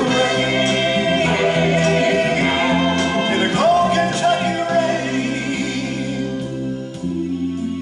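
Recorded band backing track playing through the hall's speakers between sung lines, with backing singers holding long, sliding notes; the upper part thins out near the end.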